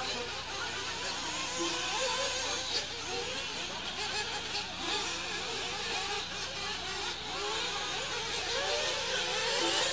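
Several nitro RC buggy engines racing around a track, their high-pitched whines overlapping and rising and falling as the cars accelerate and brake.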